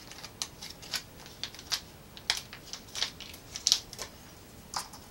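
Irregular sharp clicks and crackles of a small vintage Pream instant-creamer packet being handled and opened.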